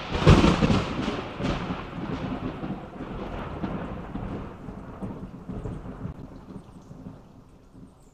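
Thunderclap with a long rolling rumble. It is loudest in the first moment and dies away over several seconds.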